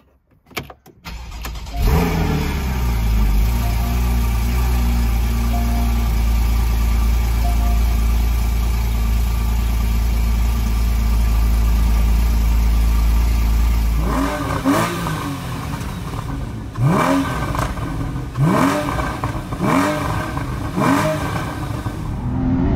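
2015 Porsche 981 Cayman GTS's 3.4-litre flat-six with factory sports exhaust and intake sound piped into the cabin, heard from the driver's seat. It is cold-started, catching about two seconds in, and holds a steady cold idle around 1,100 rpm. From about fourteen seconds in it is blipped in about five sharp free revs, each rising and falling back.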